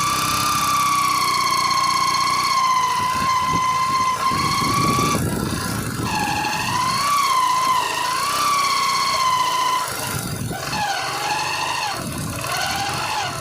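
Yamaha Crux single-cylinder four-stroke motorcycle engine running under way, with a loud high whine over the engine note that holds steady, then wavers up and down and drops in pitch near the end. The whine comes from a worn primary drive gear (GPD pinion) whose teeth have worn and opened a gap.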